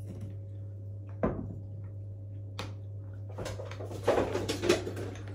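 A metal spoon knocking and scraping in a small glass bowl while stirring a yogurt sauce: one sharp knock about a second in, then a cluster of clinks and scrapes near the end, over a steady low hum.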